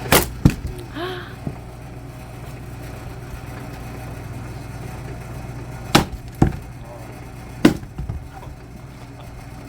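Firewood being split with a hydraulic axe: sharp cracks of wood splitting, a pair right at the start, another pair about six seconds in, and one more shortly after, over a steady low hum.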